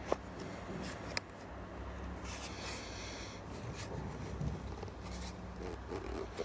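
Hands pressing a small rubber tyre's bead over a plastic wheel rim: rubber rubbing and scraping against the rim, with two sharp clicks about a second apart near the start.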